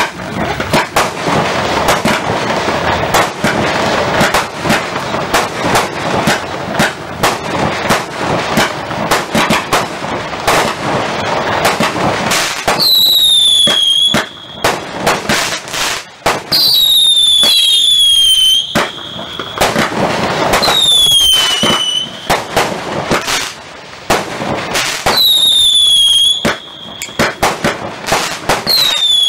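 Lesli Counterstrike 49-shot fireworks cake firing. About the first twelve seconds are dense crackling. After that come separate shots and bursts, and about six of them carry a whistle that falls in pitch and then holds steady for a second or so.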